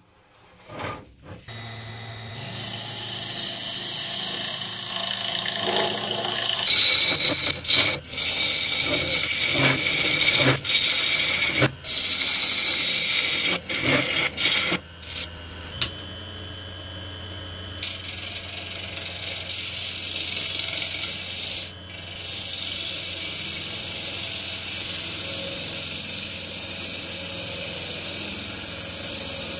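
Gouge cutting into the end grain of a log spinning on a Rikon wood lathe: a hissing, scraping cut as the inside is hollowed out. It starts about two seconds in and comes and goes in spells with short breaks, over the lathe's steady low hum.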